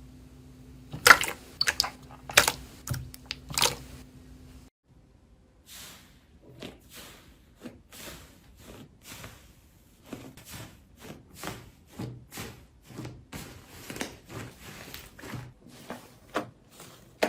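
Slime being squeezed and poked by hand, making sharp sticky pops and clicks. A few loud pops come first, then a steady run of crackly clicks at about two a second.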